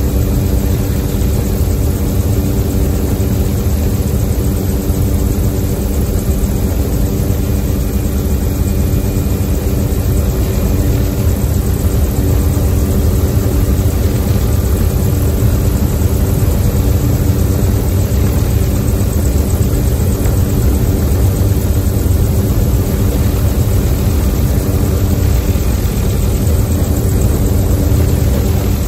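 Helicopter in steady forward flight, heard from inside its doors-off cabin: the rotor and engine make an unchanging drone with several steady tones, mixed with the rush of wind through the open doors.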